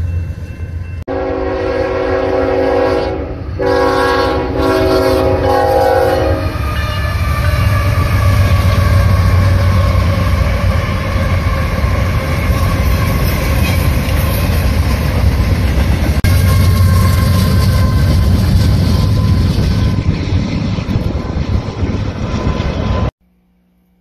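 Union Pacific diesel locomotive's multi-chime air horn sounding two long blasts, followed by the locomotives and train rolling past with a steady heavy rumble and wheel clatter.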